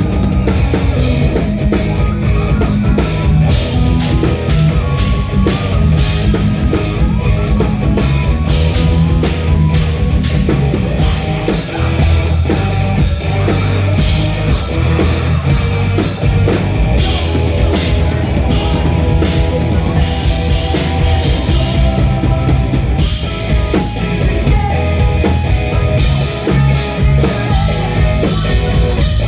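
A live post-hardcore rock band playing at full volume: drum kit, electric guitars and bass together in a dense, continuous wall of sound.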